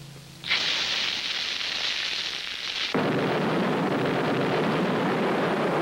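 Underground mine blasting. About half a second in a lit fuse starts hissing, and at about three seconds the round goes off: the sound changes suddenly to a louder, steady rush of noise that keeps going.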